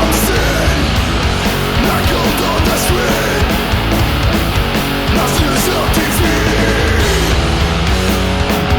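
Punk rock band playing loud, with electric guitars and drums; cymbal hits run through it.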